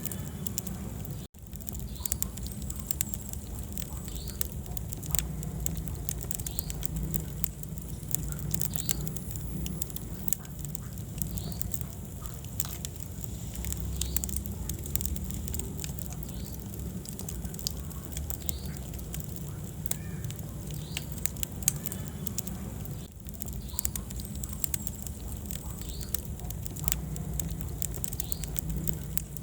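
Wood fire crackling in a fireplace: irregular sharp pops and snaps over a steady low rumble of the flames. The sound drops out for an instant about a second in.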